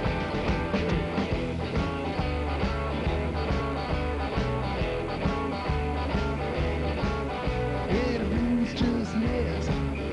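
Live rock and roll band playing: an upright double bass plucked under electric guitar, with a steady beat.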